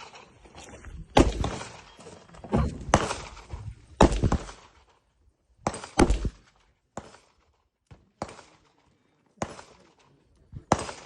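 Airsoft shooting: about ten sharp single cracks or knocks at irregular intervals, each dying away quickly, with gaps of near quiet between them.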